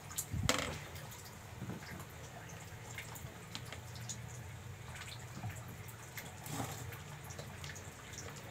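Boiled potatoes being picked off a perforated steamer tray and dropped in one at a time, making soft, wet knocks, the loudest about half a second in. A steady low hum runs underneath.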